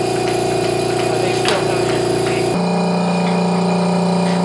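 Steady motor hum of vacuum-bagging equipment running, with one sharp click about one and a half seconds in. About two and a half seconds in, the hum changes abruptly to a lower, steadier drone.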